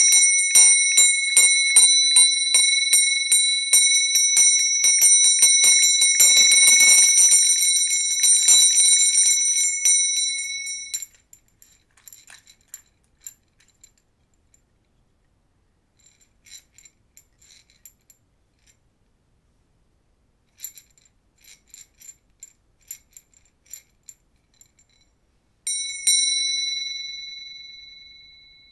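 Small hand-held bell with a wooden handle, shaken fast for about eleven seconds: quick clapper strikes over a steady high ring, then cut off sharply. Faint scattered clicks follow, and a few seconds before the end a single strike rings out and slowly fades.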